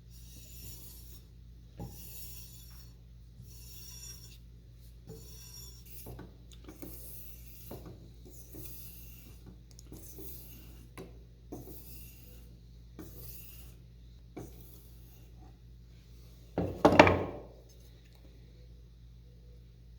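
Rasping hand strokes of a file or abrasive worked back and forth, a little over one stroke a second, during hand work on an old drawknife. About three seconds before the end comes one much louder, longer scrape.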